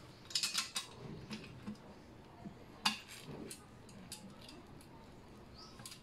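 Small metal clicks and clinks of a bolt and nut being fitted by hand into a bike rack's centre support: a quick cluster of clicks near the start, one sharper click about three seconds in, then a few lighter taps.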